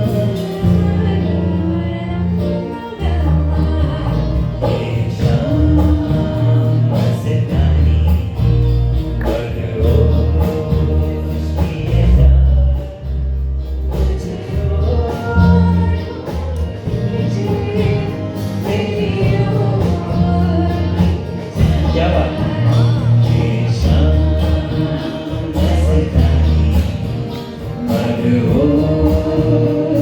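A live band playing a song with a singer's voice carrying the melody over a strong bass line.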